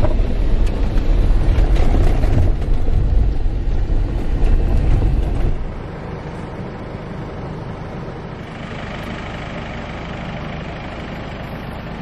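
Jeep running: a heavy, uneven low rumble for the first half, then a sudden drop about halfway through to a steadier, quieter run.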